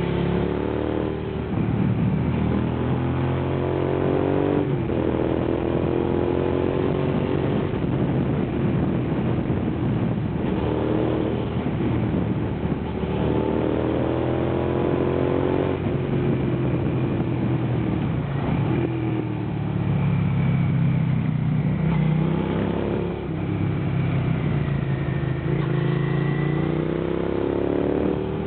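Suzuki SV650's V-twin engine pulling hard through a run of bends, its pitch climbing under throttle and dropping back each time it is shut off or shifted, again and again, over a steady rush of wind.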